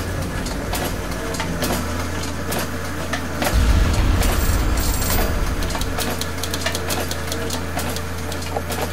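Sound-designed machinery effects: a steady low engine-like hum under many rapid, irregular clicks and clanks, the low hum swelling louder about three and a half seconds in.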